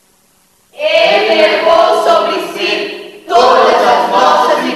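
A choir singing loudly, many voices together, coming in about a second in after a near-silent moment and breaking off briefly before carrying on.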